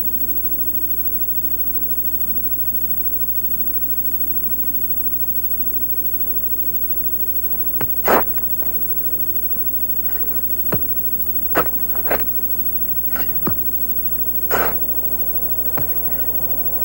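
Steady hiss and low hum of an old tape soundtrack, then, from about eight seconds in, about ten sharp, irregularly spaced clicks and knocks.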